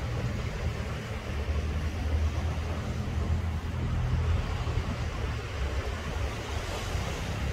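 Small waves washing onto a sandy beach, over a steady low rumble.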